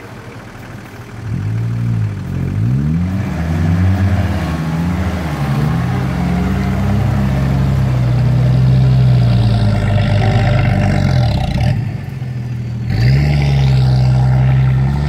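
Off-road 4x4's engine revving up and down several times, then held at steady high revs. The revs drop about twelve seconds in and pick up again a second later.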